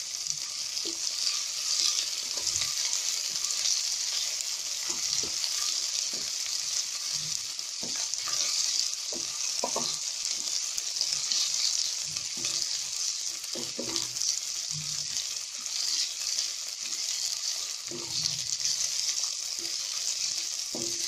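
Finely chopped onions and ginger-garlic paste sizzling in oil in a steel pan, a steady high hiss, while being stirred, with short scrapes and knocks against the metal now and then.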